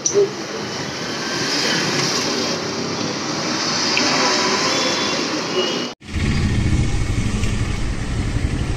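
Steady street and traffic background noise. About six seconds in, it breaks off for an instant and gives way to a louder low rumble.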